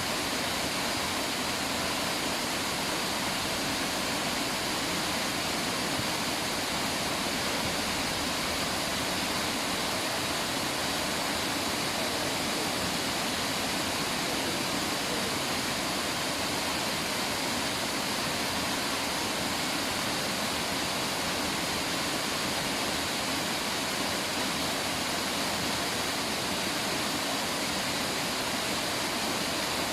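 River water rushing steadily, an even hiss with no change.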